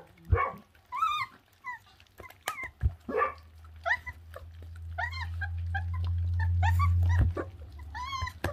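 Young puppies whining and yipping in many short, high rising-and-falling cries as they tug at raw meat, with a few sharp knocks. A low steady hum builds through the middle and cuts off suddenly about seven seconds in.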